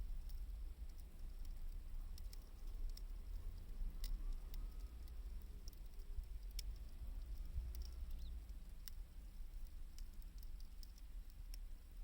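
Wood fire crackling, with scattered sharp pops at irregular intervals over a low steady rumble.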